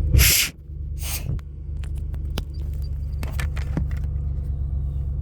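A vehicle engine idling with a steady low hum. About two short, loud rustling bursts come in the first second or so, and a few faint clicks follow.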